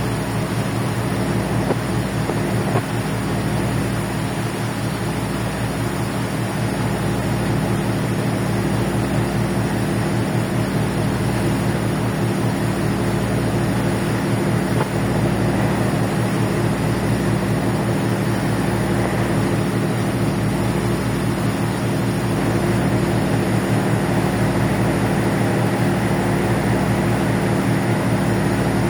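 A ferry's engines droning steadily, a low hum with a constant rushing noise over it.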